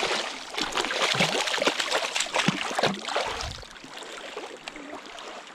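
Water splashing and sloshing, busiest for the first three and a half seconds with many quick splashes, then settling into a quieter trickle.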